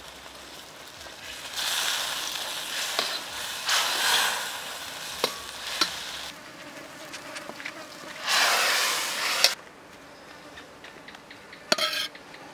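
A metal ladle stirs and scrapes sizzling sauce in a steel wok over a wood fire. The sizzle comes in two long stretches, with sharp clinks of ladle on wok. Near the end there is one short metallic scrape.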